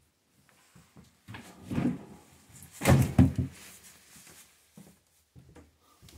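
Rustling, then a quick run of loud wooden knocks and clunks about three seconds in as split firewood is handled at the stack, with a few faint knocks after.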